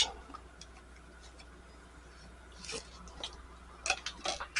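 Faint handling noise: a few light clicks and rustles, from about two and a half seconds in and again near the end, over a low steady hum.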